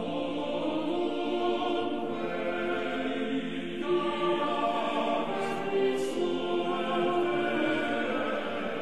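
Choral music: a choir singing slow, chant-like music in long held notes that shift every couple of seconds.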